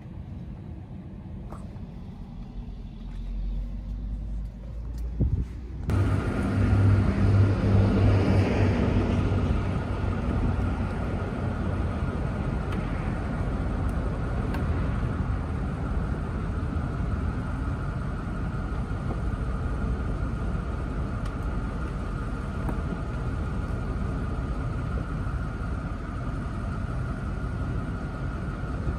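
2003 Mercedes-Benz SL500's retractable hardtop folding down, driven by its electro-hydraulic pump: a steady whine over a low rumble. For the first six seconds there is only a quieter low hum, with a click just before a sudden change to the louder sound.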